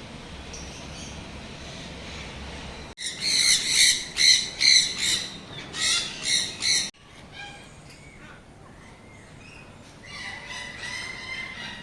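Birds squawking: a run of about seven loud, harsh calls about three seconds in that stops abruptly about four seconds later, followed by fainter bird calls. Before the squawks there is only a low hum.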